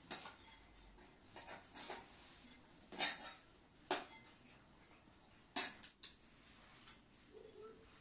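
Spoons clinking and scraping against plates, about seven separate clinks spread irregularly over the stretch, the loudest about three seconds in and again a little after five and a half seconds.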